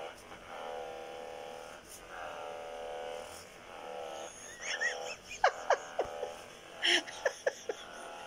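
Handheld percussion massage gun running, its motor hum swelling and fading in pulses about a second long as it works over the arm. From about halfway in, several sharp clicks and knocks, the loudest sounds here, and a brief vocal sound.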